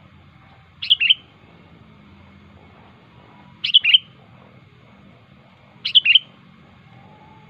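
Sooty-headed bulbul (kutilang) calling: three short, quick bursts of chirping notes, each about a third of a second long, spaced two to three seconds apart.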